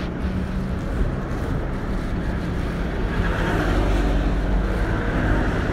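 Steady roadside traffic rumble with wind buffeting the microphone.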